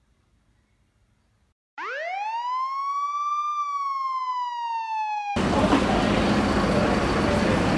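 A police siren wails once, rising quickly in pitch and then slowly falling. It cuts off abruptly a little past five seconds in and gives way to loud, busy city street noise.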